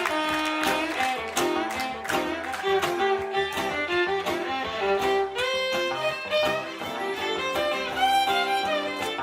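Live folk band playing an instrumental break: a fiddle carries the melody over strummed guitar and bass.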